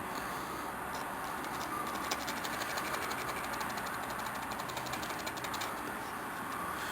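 A rusted pivot joint of old pliers clicking and grating as the jaws are worked back and forth, a fast run of small ticks from about two seconds in to near the end, over a steady hiss. The joint is stiff with rust and is freeing up under WD-40 penetrating oil.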